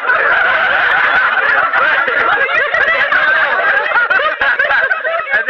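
A group of people laughing together, many voices overlapping without a break.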